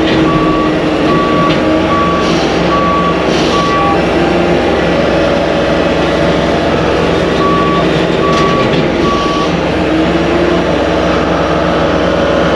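Skid steer engine running steadily while its reverse alarm gives short, evenly spaced beeps, five in a row, then a pause, then three more: the machine is backing up.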